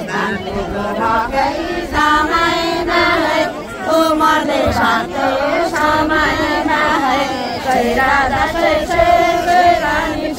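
Several women singing a Nepali folk song together, their voices rising and falling.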